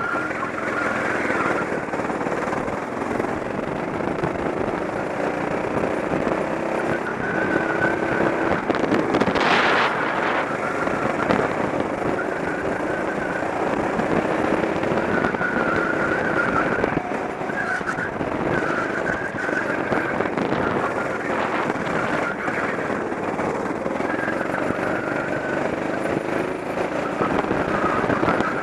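Go-kart engine running hard under the driver, its pitch rising and falling over and over as the kart accelerates and slows through the lap.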